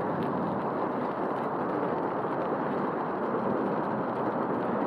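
Steady, even rushing noise of a bicycle being ridden: wind and tyre noise while cycling on a wintry paved path.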